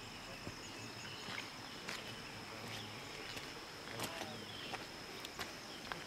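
Rainforest ambience: a steady high-pitched insect trill, likely crickets, with faint bird chirps and a few sharp clicks scattered through it.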